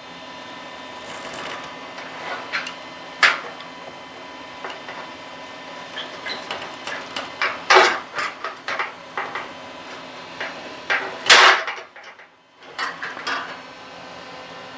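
Hand pop rivet gun being squeezed stroke after stroke to set a 1/8 inch rivet, giving a series of metallic clicks and sharp snaps as its jaws grip and pull the mandrel. The loudest snaps come about three, eight and eleven seconds in, over a faint steady hum.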